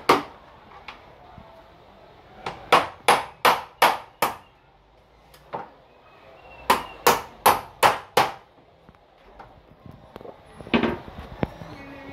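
Hammer driving concrete nails through the back of a plastic meter box into a wall: two runs of about six quick blows, with single strikes before, between and near the end.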